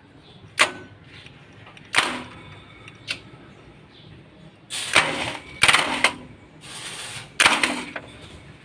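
Starter of a Mitsubishi Fuso 4D34 diesel being bumped by hand with a jumper wire touched to its positive terminal, to inch the engine round for a valve-clearance check: three sharp clicks, then four short noisy bursts.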